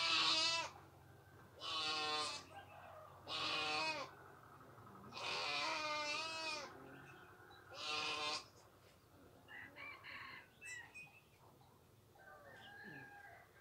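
A goat bleating five times in the first half, each wavering call lasting about a second, followed by fainter, scattered calls.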